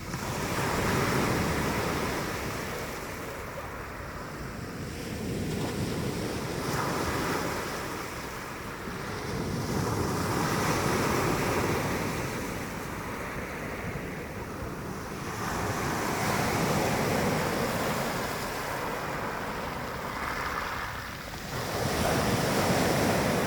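Mediterranean sea waves washing onto the shore, the surf swelling and falling back about every six seconds, with wind on the microphone.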